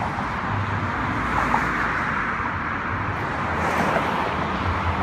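Steady road traffic noise: cars driving past on the bridge's roadway, with tyre noise and no single event standing out.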